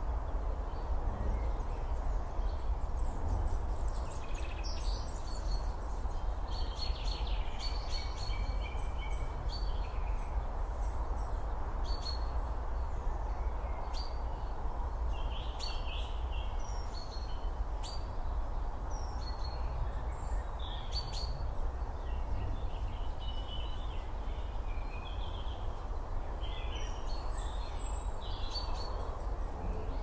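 Birds calling outdoors with short, scattered chirps and twitters, over a steady low background rumble.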